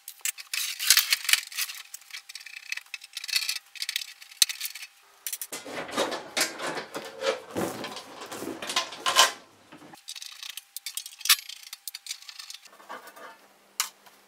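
Sheet-metal cover of a MIG welder being handled and lifted off: quick metallic clicks and clinks, then a fuller clattering of the metal panel about halfway through, then a few scattered clicks.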